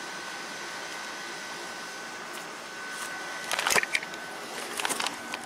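Steady background hiss with a thin, high, steady tone, broken about three and a half seconds in by a short cluster of sharp clicks and rustles, with a few lighter clicks near the end.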